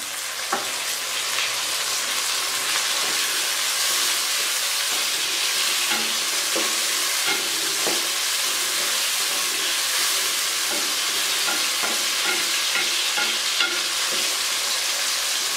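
Chopped tomatoes sizzling in hot oil with fried onions in a metal kadhai, a steady frying hiss. A wooden spatula scrapes and knocks against the pan now and then as they are stirred.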